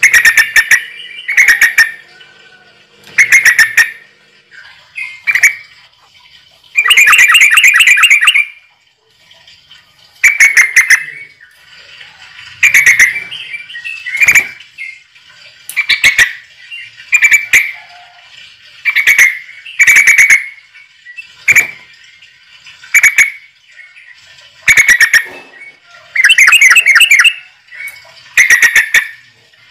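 A bird giving loud, repeated harsh pulsed calls, about one every one to two seconds, two of them drawn out into longer chattering rattles.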